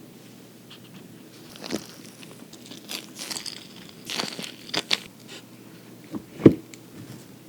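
Close-up eating sounds: crisp bites and crunching with crinkly, crackling rustles, starting after a quiet second and a half, with one sharp loud crunch near the end.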